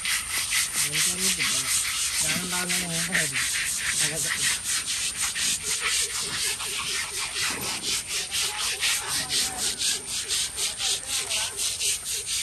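Rhythmic scrubbing strokes on an elephant's hide during its bath, about four or five strokes a second, steady throughout.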